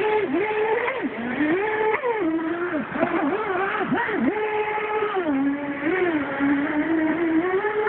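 Brushless electric motor and jet drive of an NQD radio-controlled jet boat whining as it runs through shallow rushing water. The pitch swoops up and down repeatedly with the throttle, holding steady for a second or so between changes.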